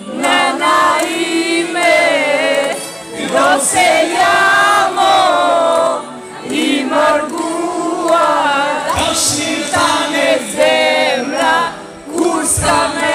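Loud live singing with music, with crowd voices mixed in, sung in phrases with short breaks.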